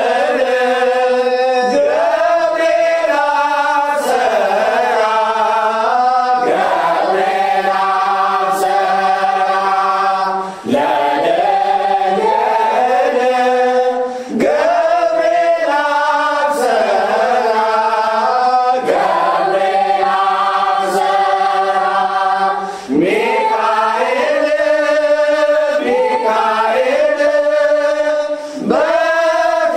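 Ethiopian Orthodox mezmur (hymn) sung in a chanting style, long melodic phrases separated by a few short breaks.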